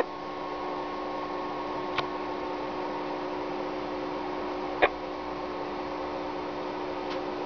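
Steady hum and hiss from an amateur radio station's VHF receiver while the ISS downlink carries no voice between answers. Two short clicks come about 2 and 5 seconds in.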